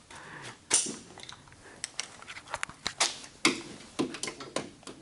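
Metal hand tools clinking and knocking against a car's subframe and suspension parts: a string of about nine irregular sharp taps and clicks.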